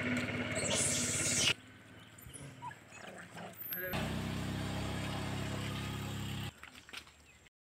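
Small auto-rickshaw engine idling steadily, cut off abruptly about a second and a half in. After a quiet stretch, a steady low drone runs for about two and a half seconds and stops suddenly.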